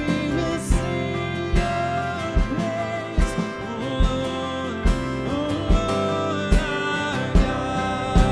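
Live worship music: singing over acoustic guitar, with a kick drum keeping a steady beat a little over once a second.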